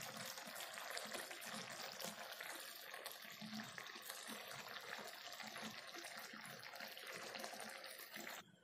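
Vegetable curry (santula) simmering in a pan, a faint steady hiss thick with tiny bubbling pops. It cuts off suddenly near the end.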